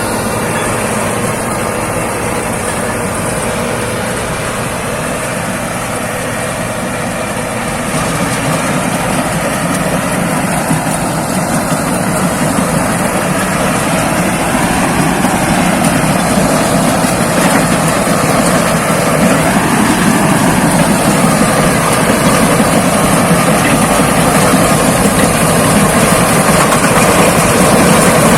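Thai Seng 'Chao Phayu' rice combine harvester running in the field, its diesel engine and threshing machinery a steady, dense drone that grows gradually louder over the second half.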